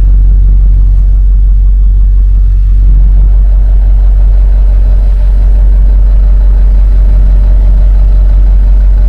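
Diesel truck engine idling steadily just after a cold start on glow plugs, heard from inside the cab. A faint steady higher tone joins about three seconds in.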